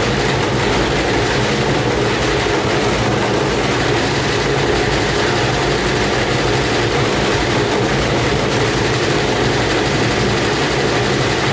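Gorenje WNHEI washing machine running hard with a soaking-wet load, a loud steady rumble and hum from its motor and drum.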